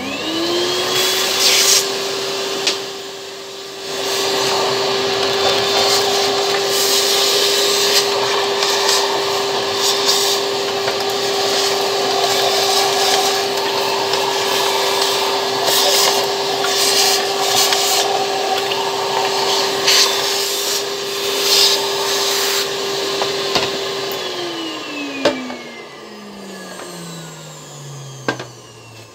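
A vacuum cleaner switches on and runs steadily as it cleans waste toner from the drum cartridge's plastic parts, with rubbing and scraping as the parts are worked against the nozzle. About five seconds before the end it is switched off, and its whine falls in pitch as the motor winds down.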